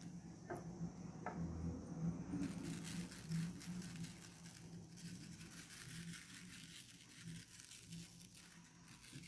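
Faint fine pattering as table salt is shaken from a metal-topped glass salt shaker onto wet watercolour paper. After a couple of light clicks, a steady crackle of tiny ticks starts about two and a half seconds in and runs on almost to the end.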